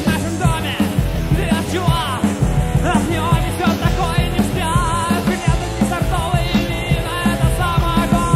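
Rock music from a full band: steady drum-kit beats under bass and guitars, with a wavering high melody line over the top.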